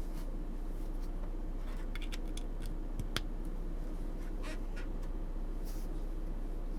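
A few scattered clicks from an RE65 mechanical keyboard's lubed Holy Panda tactile switches, as a handful of keys are pressed around two to three seconds in, over a steady low hum.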